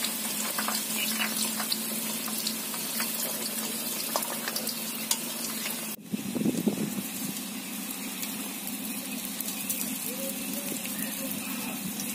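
Rain falling steadily, an even hiss with scattered ticks of drops. The sound changes abruptly about halfway through.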